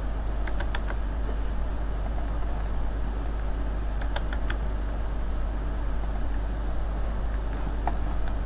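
Computer mouse clicks and scroll-wheel ticks, with an occasional keyboard key press, scattered over a steady low hum and hiss of background noise.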